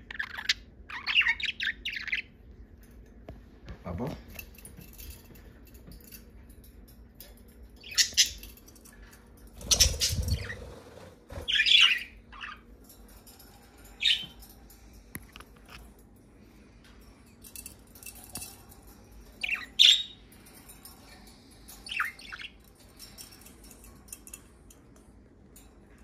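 Budgerigars chirping and squawking in short, separate calls every few seconds, with a short muffled bump about ten seconds in.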